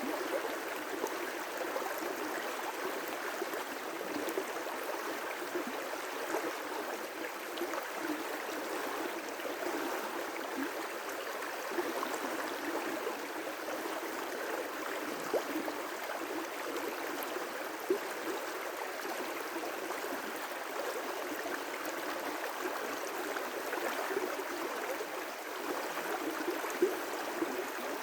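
River rapids: water rushing and splashing over rocks in a steady, unbroken flow, with a few brief louder splashes.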